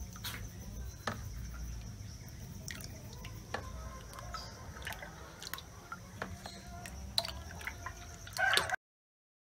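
Thick homemade liquid laundry soap pouring from a plastic jug into a plastic basin, with scattered drips and splats. A chicken calls briefly near the end, then the sound cuts off suddenly.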